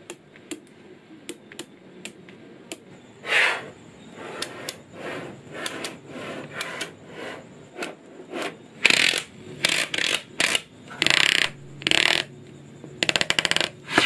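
Small magnetic balls clicking and clattering as they are snapped together and pressed into place by hand, in separate sharp clicks and short rattling bursts, with a rapid run of clicks near the end.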